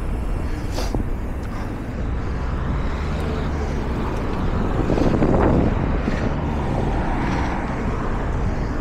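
Steady road noise with a low rumble, swelling louder about five seconds in.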